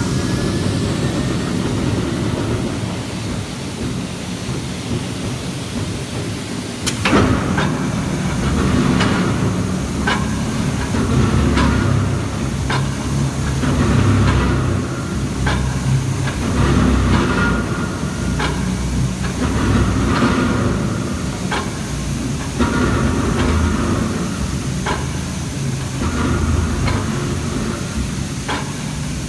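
Voronezh K8548 hot forging press running with a steady low mechanical rumble. After a sharp loud clack about a quarter of the way in, short metallic clacks follow roughly once a second.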